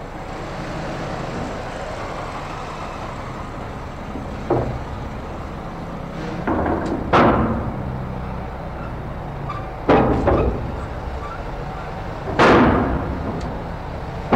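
Cars being driven off a docked car ferry: a series of heavy clanks and thumps, about six over the stretch, the loudest about halfway and near the end, over the steady low rumble of the ship.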